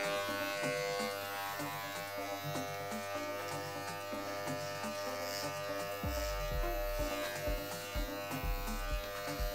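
Corded electric hair clippers buzzing steadily as they cut short hair.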